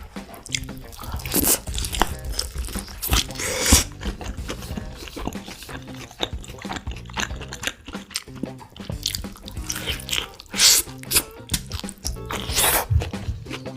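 Loud crunchy bites and chewing of chicken close to the microphone, several big crunches standing out over background music with a steady bass line.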